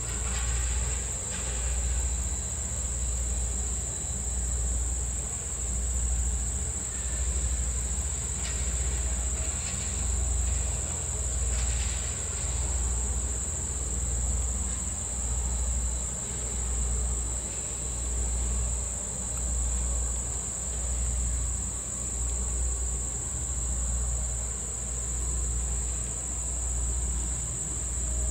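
Insects drone steadily and high-pitched, while the standing steam train gives a deep, low pulsing about once a second.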